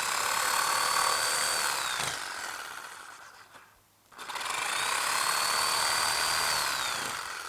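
Power saw running through wood twice, each run about four seconds, its motor whine rising as it starts and dropping away as it finishes, with a short pause between the two.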